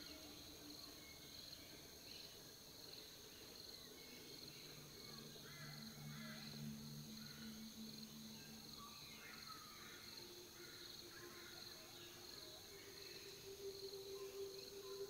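Faint, steady insect drone of crickets or cicadas from the bush, with scattered faint chirps over it. Soft sustained low tones run beneath and change pitch every few seconds.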